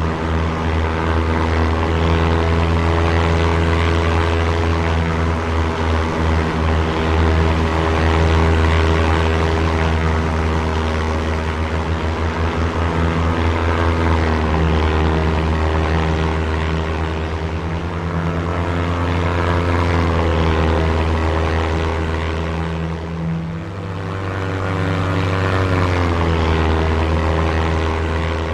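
Propeller aircraft engine drone as light planes fly past one after another, the engine pitch bending as each one passes.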